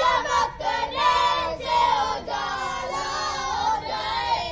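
Children's voices chanting a dua (Islamic supplication) to a singsong melody, in short phrases with brief breaks between them.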